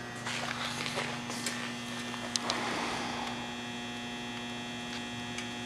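Steady electrical mains hum, with a few faint clicks and a light rustle in the first half.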